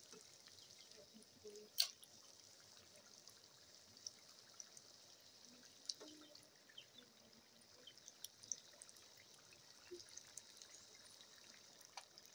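Samosas deep-frying in hot oil: a faint, steady sizzle with scattered small pops and crackles, and one sharper click about two seconds in.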